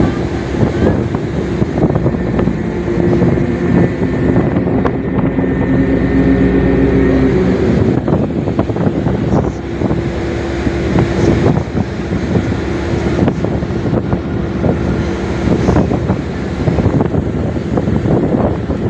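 Ferry MV Alfred's engines running with a steady drone as the vessel manoeuvres in to berth, the pitch of the drone shifting for a few seconds partway through. Wind buffets the microphone throughout.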